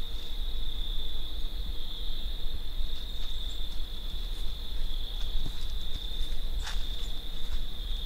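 Steady insect chorus: one unbroken high-pitched trill, over a low rumble, with a faint click near the end.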